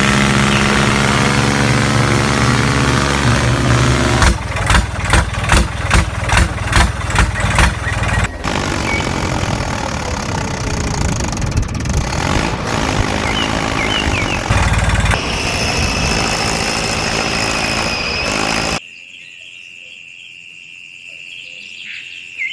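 Small engine running, with a steady pitched drone at first and then a run of strong pulses about two a second. Noisier running with some high squeals follows, before the sound cuts down sharply to a much quieter stretch near the end.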